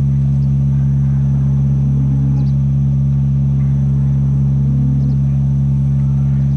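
A loud, steady low hum made of several fixed pitches, unchanging throughout.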